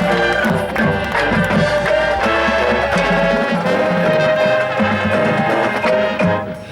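Marching band's brass section playing sustained chords with percussion, over a deep bass; the music breaks off just before the end.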